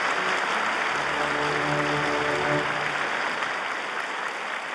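Audience applauding, with a few held musical notes sounding under the clapping for about the first three seconds. The applause slowly dies down toward the end.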